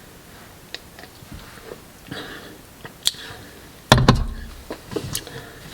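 Objects being handled: a few faint clicks, then one heavy thump about four seconds in, as of something set down on a hard surface, followed by two more light knocks.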